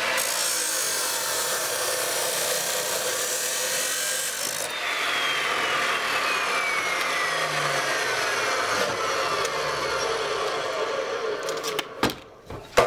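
Abrasive chop saw cutting through 1095 high-carbon steel bar stock: a steady, harsh grinding hiss over the motor's whine. About five seconds in, the whine's pitch starts falling slowly as the wheel winds down while the grinding goes on. It stops shortly before the end with a couple of sharp clunks.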